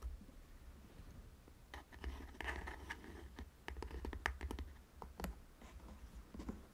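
Hands handling a pair of Audio-Technica ATH-M20x headphones: scattered light plastic clicks and scratchy rubbing on the earcups and headband.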